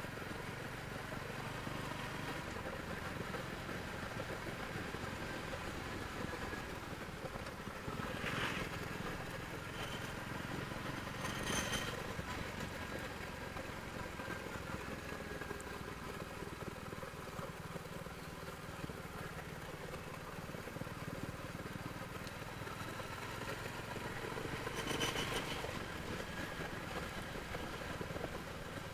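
Royal Enfield Hunter 350's single-cylinder engine running steadily through its stock exhaust, with a few brief louder noisy moments about 8, 11 and 25 seconds in.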